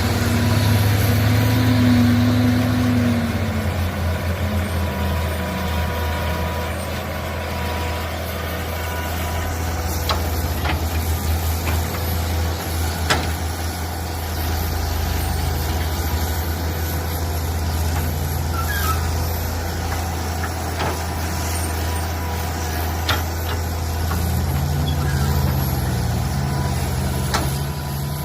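Mini excavator's engine running steadily while digging, its note going higher for a few seconds at the start and again near the end, with a few sharp knocks along the way.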